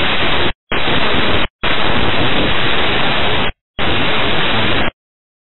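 Air traffic control radio static: a loud, even hiss with no voice in it that cuts off abruptly to dead silence four times, with a faint click as it comes back on, and is silent near the end.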